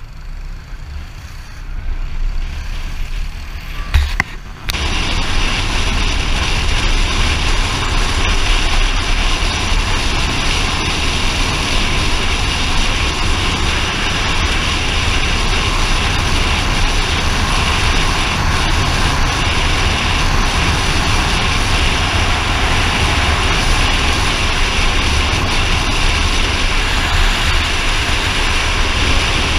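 A moving vehicle at steady speed: a loud, even rush of engine and wind noise with a faint steady hum in it, starting abruptly about four and a half seconds in after a quieter stretch.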